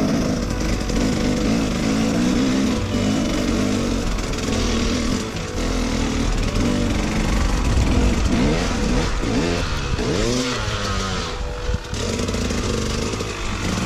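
Dirt bike engine being ridden on a rough trail, with the revs rising and falling over and over as the throttle is worked. It is heard close up from the rider's own bike.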